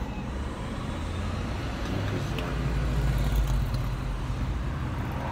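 Steady low rumble of a car heard from inside its cabin, swelling slightly about three seconds in.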